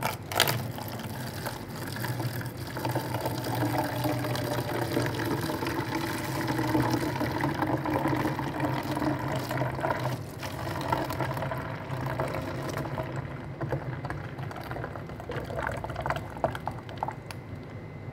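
Beetroot juice streaming from an electric juicer's spout and filling a container, over the juicer motor's steady hum. A sharp click sounds about half a second in.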